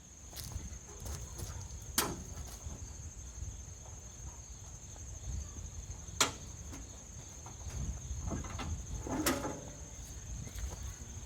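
Steady high insect chirring, broken by three sharp knocks about two, six and nine seconds in, from work on a homemade band sawmill during a blade change.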